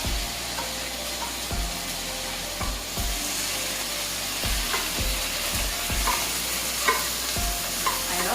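Onions, tomato and spices frying in ghee in a pan, sizzling steadily while being stirred, with soft knocks of the spoon against the pan every second or so.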